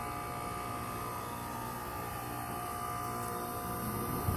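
Weatherking 3.5-ton central air conditioner's outdoor unit running just after start-up: a steady hum from its Copeland scroll compressor and ECM fan motor, with a few whining tones, one of them sliding slowly down in pitch during the first couple of seconds.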